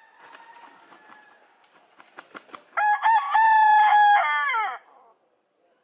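Rooster flapping its wings with a few sharp claps, then crowing once, a loud cock-a-doodle-doo of about two seconds whose pitch drops at the end.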